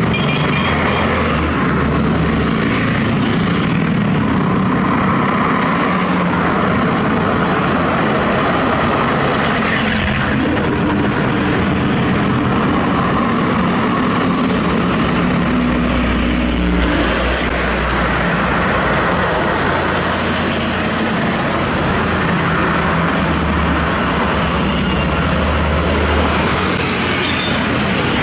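Diesel engines of heavy Mitsubishi Fuso and Hino 500 self-loader trucks carrying excavators as they drive past, running steadily under load amid other road traffic. The low engine rumble swells twice, about halfway through and again near the end.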